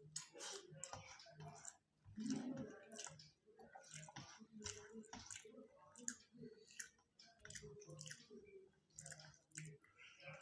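Faint eating sounds: quick wet clicks and smacks of chewing, with fingers working rice on steel plates.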